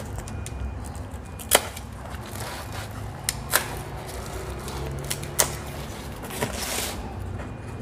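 A utility knife cutting through plastic packing straps: a handful of sharp, irregular clicks and snaps, with a brief scraping rustle near the end.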